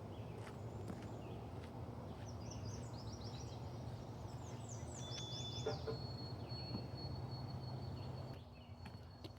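A songbird singing rapid series of quick, high, downward-sweeping chirps, followed by a thin steady high tone lasting about three seconds, over a steady low hum that drops away near the end.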